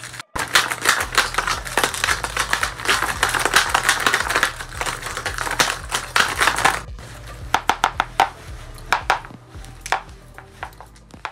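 Paper dragon puppets' jaws snapped open and shut rapidly: a dense run of papery clacks and crinkles, breaking off briefly just after the start and again about seven seconds in, then sparser.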